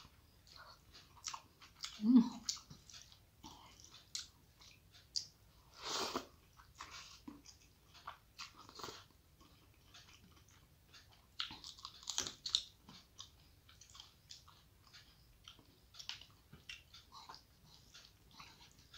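Close-miked chewing and wet mouth sounds of a person eating rice mixed with cauliflower, potato and eggplant curry by hand, heard as scattered clicks and smacks. One louder, lower thump comes about two seconds in.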